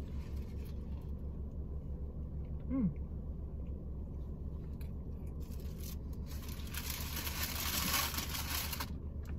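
Chewing a mouthful of lamb shawarma wrap, with a short hummed "mm" about three seconds in, over a steady low hum. From about six and a half seconds in, a couple of seconds of loud crinkling and rustling of wrapping, the loudest sound here.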